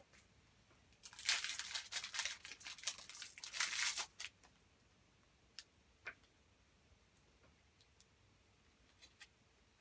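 Match Attax trading-card pack wrapper being torn open and crinkled for about three seconds, starting about a second in, followed by a few faint taps.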